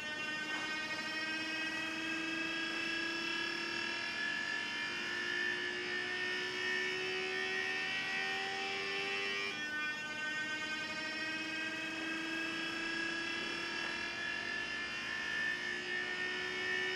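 DIY laser galvanometer's mirror actuators buzzing as they are driven by a slowly rising audio tone sweep. The buzz climbs in pitch for about nine seconds, drops back about halfway through, and climbs again.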